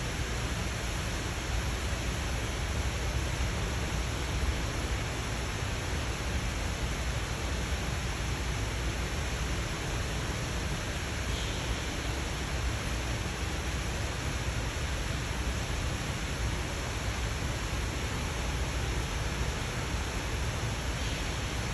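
Steady, even rushing background noise with no distinct events, and a faint brief high chirp about eleven seconds in.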